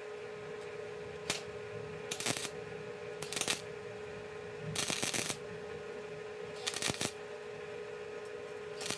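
Welder laying short tack welds to fill trim holes in sheet-metal body panels: about five brief bursts of arc crackle, each under a second long, with pauses between them, over a steady hum.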